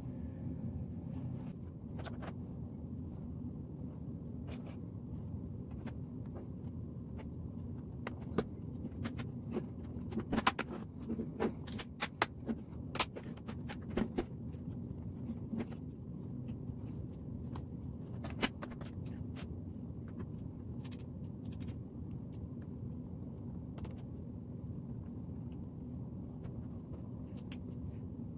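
A laptop's bottom cover being pressed back onto the chassis: a run of sharp clicks and taps as its edges snap into place, over a steady low hum.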